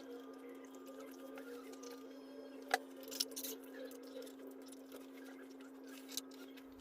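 Faint handling noises, light clicks and rustles, with one sharper click a little under three seconds in, over a steady low hum.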